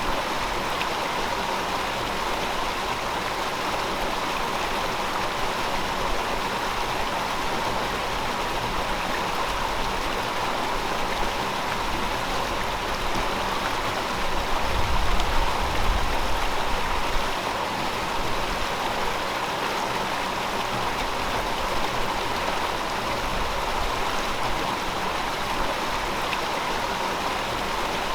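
River water flowing steadily over rocks, a continuous rushing and babbling. A deeper rumble swells for a few seconds about halfway through, then settles back.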